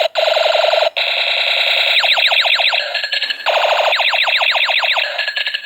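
Battery-powered toy Barrett sniper rifle playing its electronic firing sound effect: a loud, rapid string of falling 'pew' sweeps, many a second, with short breaks about a second in and about three seconds in.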